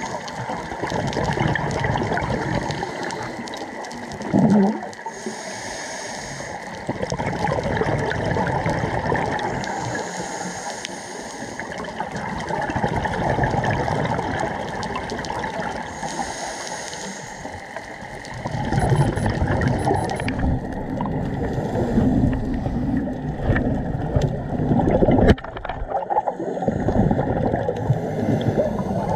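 Scuba diver breathing underwater through a regulator: a hissing inhalation about every five or six seconds, alternating with rumbling, bubbling exhalations. There is a brief low rising tone about four seconds in and a sharp click near the end.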